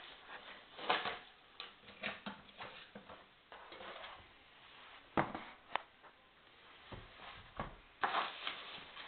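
Handling noises from a laptop and its parts: scattered clicks and knocks with some rustling between, the two sharpest a little past the middle.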